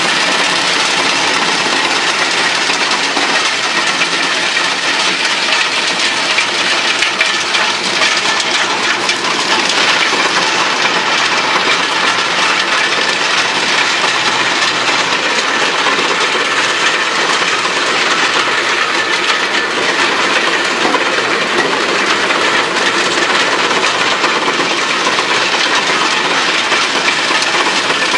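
TY215 drum wood chipper, belt-driven by an electric motor, running steadily while chipping branches: a loud, dense crackle and rattle of wood being cut to chips.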